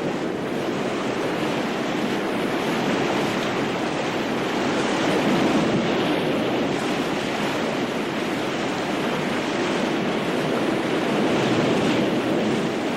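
Ocean surf: a steady wash of breaking waves that swells a little in places.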